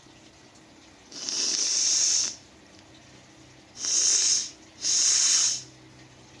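A person forcefully blowing their nose three times: one long blow of about a second, then two shorter blows in quick succession.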